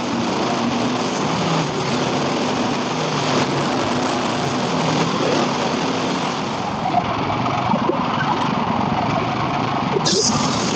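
Hudson Patriot bandsaw mill running steadily, its small gasoline engine droning under load as the blade saws a thin siding board off a log. A short high-pitched sound comes about ten seconds in.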